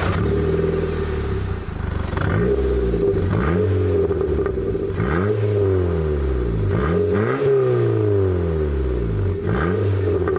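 Ford Fiesta engine heard through a Napexx aftermarket rear silencer with twin tailpipes, warmed up and being revved while stationary. Short revs repeat every second or two, the pitch rising and falling back to idle each time.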